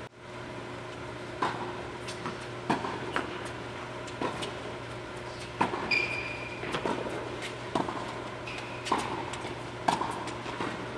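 Tennis rally on an indoor hard court: rackets strike the ball and the ball bounces, giving sharp echoing knocks about once a second with a few quicker exchanges, and a brief squeak about six seconds in. A steady low ventilation hum runs underneath.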